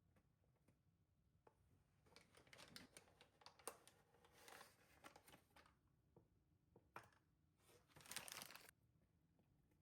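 Crinkling and rustling of something being handled, in two stretches of a few seconds each, with a few light clicks.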